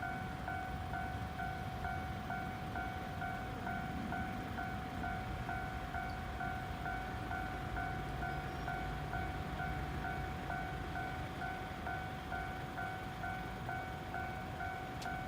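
Japanese level-crossing warning bell ringing in an even, rapid repeat over a low steady rumble.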